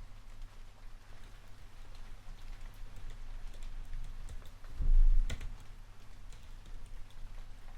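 Computer keyboard typing, with scattered key clicks, over a steady hiss of rain. About five seconds in comes one much louder low thump with a sharp click.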